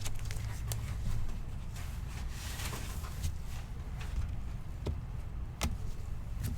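Trading cards and foil pack wrappers being handled: a few light clicks and a soft rustle about two and a half seconds in, over a low steady hum.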